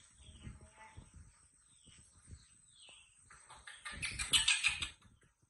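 Short high chirping calls, each falling in pitch, repeated every half second or so, with a louder harsh, rapidly pulsing call from about three and a half to five seconds in, over soft low thumps.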